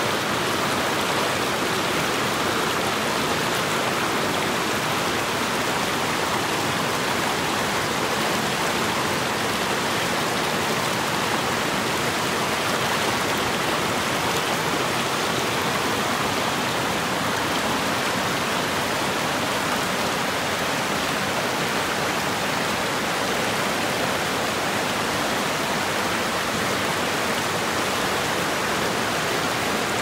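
Creek water rushing over rocks below a waterfall: a steady, loud, even rush with no breaks.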